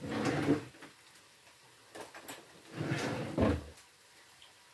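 A kitchen drawer sliding open and, a couple of seconds later, shut again; each is a short slide ending in a bump.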